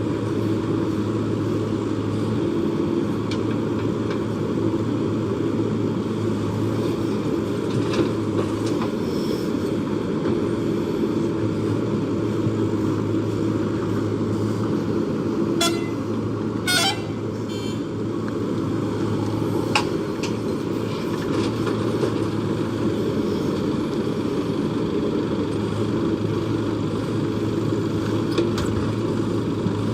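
Diesel engine of a JCB backhoe loader running steadily under work, its note fading and returning as the machine digs and loads. A brief high-pitched sound cuts in about halfway through.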